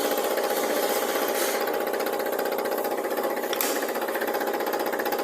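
Milling machine cutting metal: a steady machining run with a fast, even chatter from the cutter, and a brief sharp click about three and a half seconds in.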